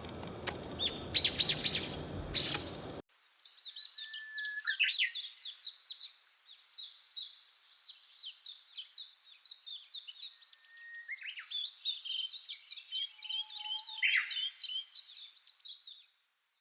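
A bird calling and chirping. For about the first three seconds a few loud high calls sound over background noise. Then a long run of rapid, short, high chirps follows, pausing briefly about six and ten seconds in.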